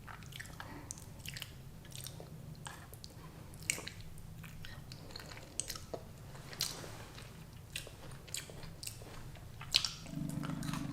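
A person chewing and biting food close to the microphone, with wet mouth clicks and a few sharper crunches scattered through, over a low steady hum.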